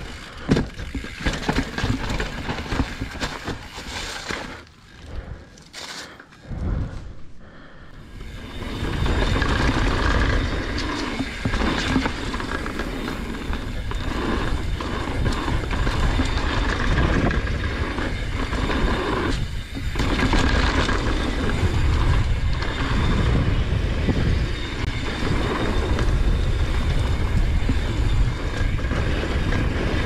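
Mountain bike ridden downhill over rocks and dirt: uneven knocks and rattles from the bike at first, then, from about nine seconds in, a steady loud rumble of tyre noise and wind on the microphone as the bike runs fast along a dirt trail.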